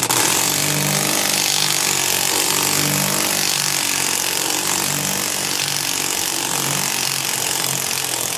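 Impact wrench hammering steadily, driving an impact bolt-extractor socket onto a seatbelt bolt with a rounded Torx head to break it loose. It starts abruptly and runs for about eight seconds before stopping.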